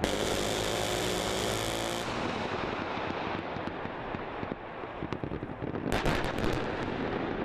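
Live-fire explosions and gunfire echoing across a firing range. A sudden loud rushing blast with a humming drone fades after about two seconds into a rolling rumble, and a quick cluster of sharp cracks comes about six seconds in.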